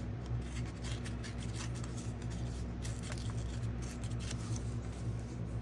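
Paper being handled by hand on a work surface: scattered light rustles and scratchy clicks over a steady low hum.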